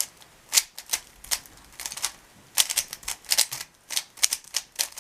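Plastic speedcube being turned by hand: a quick, irregular run of sharp clicks as the layers snap round, coming in fast clusters.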